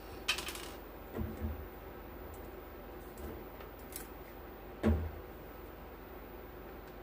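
Small hand tools handled on an electronics workbench: a short metallic clatter, a few soft knocks and clicks, and one louder knock about five seconds in, over a low steady hum.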